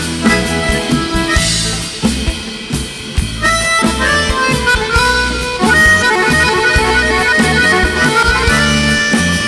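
Live rock band playing an instrumental passage: a bayan (button accordion) carries the melody over drum kit and electric guitar.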